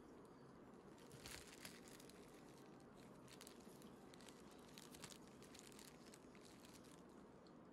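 Near silence: faint room tone with a few soft clicks and crackles, the clearest about a second in and more around three and five seconds in.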